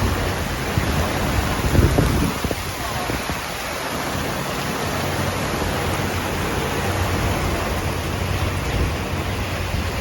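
Heavy rain pouring down around a sailboat, a dense steady hiss, with a low steady hum underneath from about four seconds in, from the boat's engine motoring slowly.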